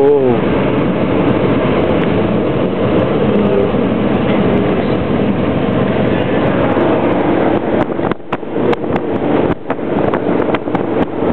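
Steady road and engine noise of a vehicle driving across the Brooklyn Bridge, heard from inside. In the last few seconds there is an irregular clatter of sharp knocks.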